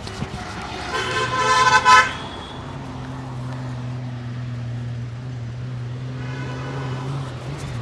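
A vehicle horn honks loudly for about a second, then road traffic hums steadily with a low engine drone. A second, fainter horn sounds near the end.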